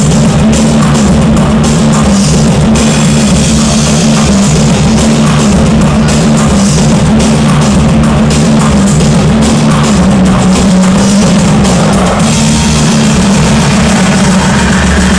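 Loud rock music with a heavy drum beat and driving bass, played over a hockey arena's PA system and filling the large hall.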